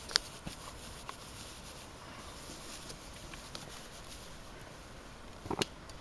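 A few sharp clicks and light knocks from fire-lighting gear being handled: the loudest just after the start, smaller ones about half a second and a second in, and a short cluster near the end, over a faint outdoor hiss.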